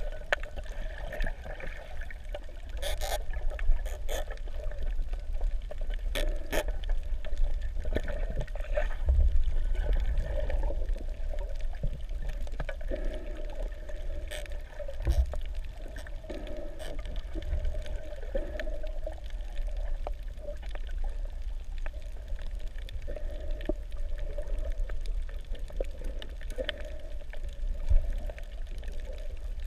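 Underwater sound heard through a camera's waterproof housing while snorkeling over a reef: a steady muffled rush and low rumble of moving water, with scattered sharp clicks and crackles throughout.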